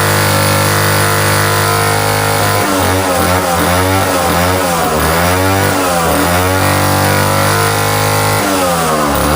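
McCulloch 5-49 two-man chainsaw's 130 cc two-stroke engine running loud, holding steady for a couple of seconds, then its speed dipping and climbing back several times, steady again for a while, and swinging once more near the end.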